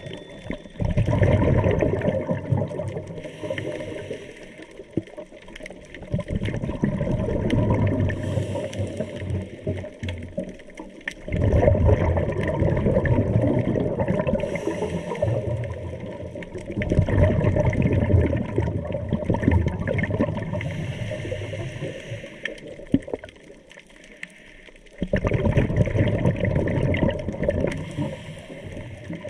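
Scuba diver's open-circuit regulator breathing underwater: about five long bursts of exhaled bubbles gurgling past the microphone, with quieter inhalations between them in a slow, even rhythm.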